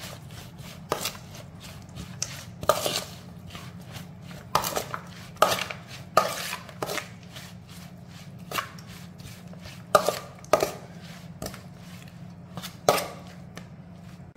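A metal utensil clinks and scrapes against a metal bowl as shredded green mango salad is tossed and mixed. The strikes come irregularly, about one a second, over a steady low hum.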